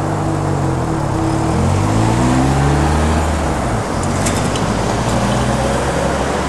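A diesel train passing over the level crossing, its engine note sliding in pitch as it goes by, with a few sharp clicks from the wheels about four seconds in.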